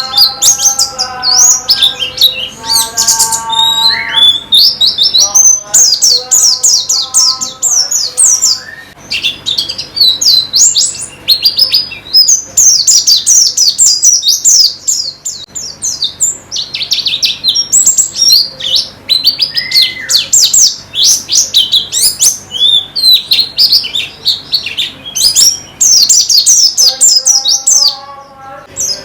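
White-eyes (pleci) singing a loud, rapid, high twittering song, chirp after chirp without pause. Steadier, lower held notes join in at the start, again about six seconds in, and near the end.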